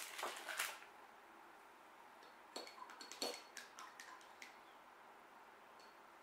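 Faint clicks, taps and rustling from hands handling painting supplies on a table: a short cluster at the start and more from about two and a half seconds in.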